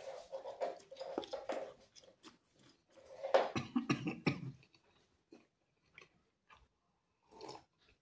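A person biting and chewing a mouthful of meat pizza, with clicky mouth sounds at first. About three seconds in there is a louder, low throaty noise, then only faint chewing ticks.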